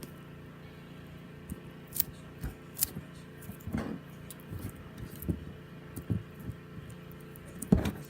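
Slime being squished and worked by hand, giving irregular sticky clicks and pops, over a steady low background hum.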